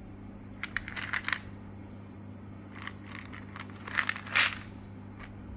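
A cardboard supplement carton handled and turned over in the hand, giving short bursts of scraping and crackling: one about a second in, another near three seconds, and the loudest around four seconds in. A steady low hum runs underneath.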